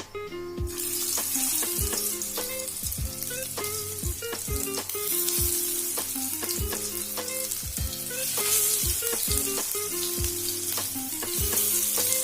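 Pea and potato tikkis sizzling as they shallow-fry in hot vegetable oil, the sizzle starting abruptly about a second in as they go into the oil and swelling louder around eight seconds in. Background music with a steady beat plays underneath.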